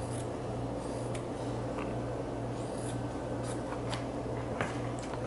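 Scissors cutting through folded satin fabric: a series of irregular snips and the rasp of the blades through the cloth, over a steady low hum.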